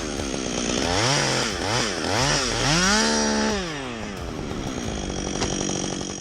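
Chainsaw engine revving up and down about five times in quick succession, then running at a steady lower speed.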